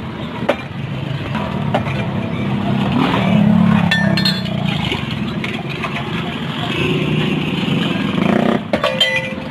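Busy street ambience of traffic and background voices, with a few sharp clinks of glass mugs and a steel jug being handled at a drinks stall.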